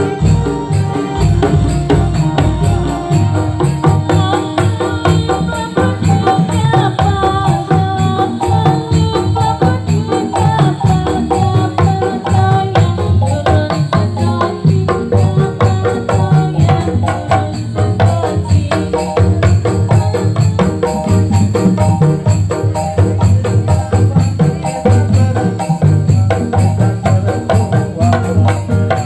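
Dolalak dance music: jingling tambourine-like percussion and drums beating a steady, dense rhythm, with a melody line above it.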